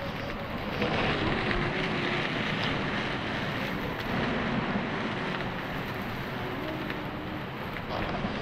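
Steady rushing noise of wind and an open wood fire, with a few faint crackles.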